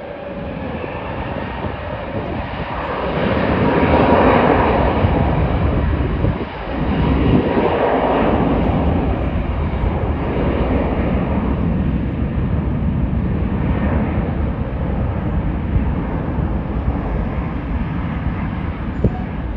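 Jet airliner taking off, its engines at takeoff power giving a loud roar that swells about four seconds in and again about eight seconds in, then holds steady and slowly eases.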